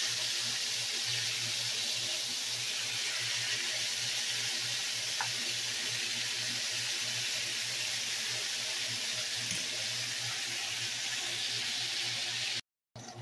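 Beef neck bones frying in hot oil in a skillet: a steady sizzle that cuts off abruptly near the end.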